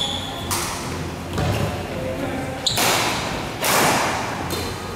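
Badminton rackets striking the shuttlecock during a doubles rally: several sharp hits, each ringing on in the large hall, with a brief high squeak near the middle.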